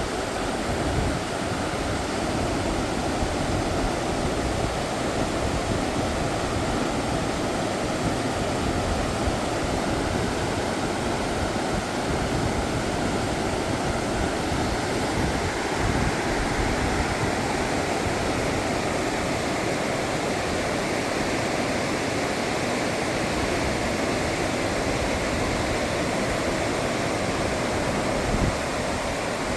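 River in spate, rushing steadily: high, fast water swollen by days of heavy rain.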